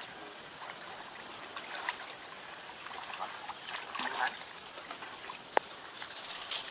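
Shallow water trickling and splashing unevenly, with scattered small clicks and knocks and one short sharp sound near the end.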